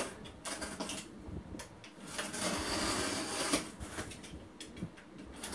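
Cardboard shipping box being handled on top of another box: rustling and scraping of cardboard with a few light knocks, including a longer scrape about two seconds in.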